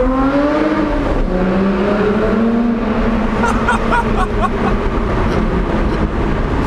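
2020 Lotus Evora GT's supercharged 3.5-litre V6 accelerating. Its pitch rises, drops at a gear change about a second in, rises again, then settles into a steadier pull. A short cluster of sharp, higher sounds comes about three and a half to four and a half seconds in.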